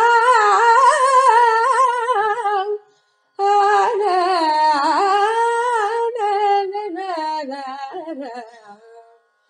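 A woman's solo voice singing Carnatic music in raga Kaapi, with wavering, gliding ornaments on held notes. There is a short break about three seconds in, and the last phrase fades out near the end.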